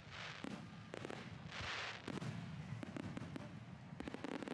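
Aerial fireworks shells bursting overhead: bangs with hissing crackle, then a fast run of sharp pops over the last two seconds or so, over a low rumble.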